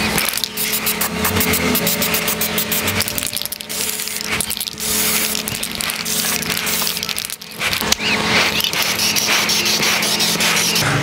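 Aerosol spray-paint can hissing: quick short spurts in the first few seconds, then longer steady sprays with a brief break near the middle.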